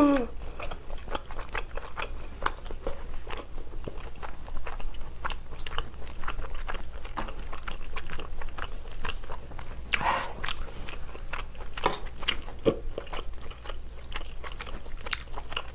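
Close-miked wet chewing of meatball and spaghetti, a dense run of small mouth clicks. A few sharper clinks near the end from a metal fork and spoon working in a stainless steel pan.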